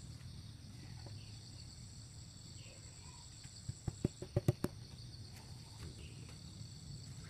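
Steady high chirring of crickets and other insects, broken around four seconds in by a quick run of about six sharp knocks as PVC-pipe eel traps are handled.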